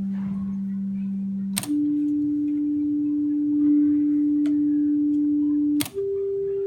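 Steady pure sine tone from an HP 241A push-button oscillator that steps up in pitch twice: a low tone, then a higher one about a second and a half in, then higher again near the end, with a sharp click at each change as the frequency is switched.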